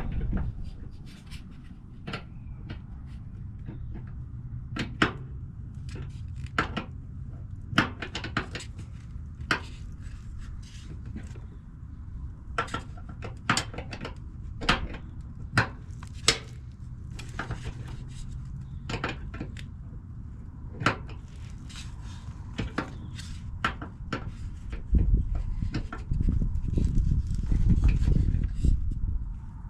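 Tools clicking and clinking against metal propane fittings as a threaded fitting is tightened down: irregular sharp knocks over a low rumble, which grows louder near the end.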